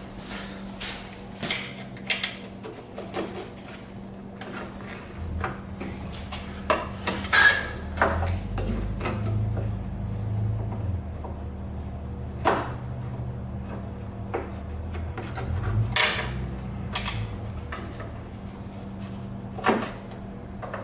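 Scattered clicks, clanks and knocks of a screwdriver, screws and sheet-metal panels being handled while a welder's case is unscrewed and opened, over a faint steady hum.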